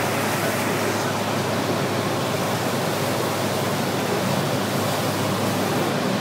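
Steady, even noise inside a Dornier 328 turboprop airliner in its descent: engine and flight noise heard from inside the aircraft.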